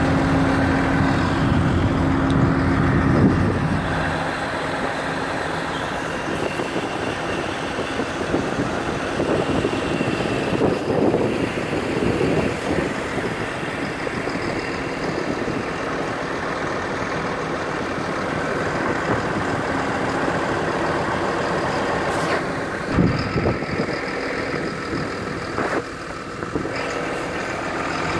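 John Deere 120C excavator's diesel engine idling steadily. It is louder for about the first four seconds, then settles a little quieter.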